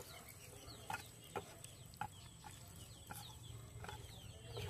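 Faint eating sounds: a handful of soft clicks, about one every half second to a second, as noodles are lifted with chopsticks and chewed. Short falling bird chirps run through it.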